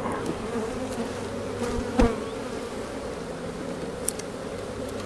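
Honeybees buzzing in a steady drone around an open hive. A single sharp knock comes about two seconds in, and a faint click follows near the end.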